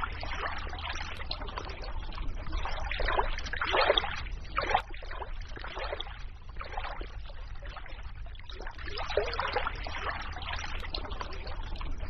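Flowing water trickling and splashing, swelling and fading irregularly.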